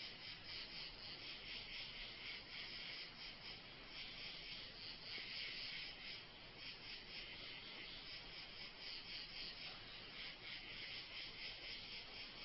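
Insects chirping in a steady evening chorus, a fast, even pulsing of high chirps.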